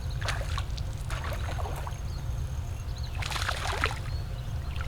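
Water trickling and splashing, with a few small clicks and a louder splash about three seconds in, over a steady low rumble of wind on the microphone.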